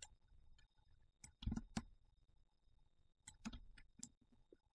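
Faint, scattered clicks of a computer mouse: a sharp pair about one and a half seconds in and a few more around three and a half to four seconds.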